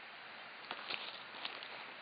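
Steady rushing of river water, with a few short sharp clicks a little under a second in.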